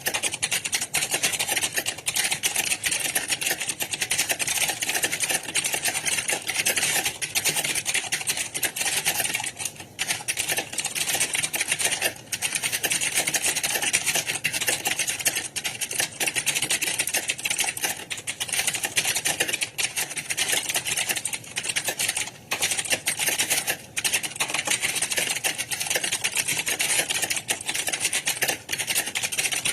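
Many computer keyboards being typed on at once: a dense, continuous clatter of overlapping keystrokes, with a few momentary lulls.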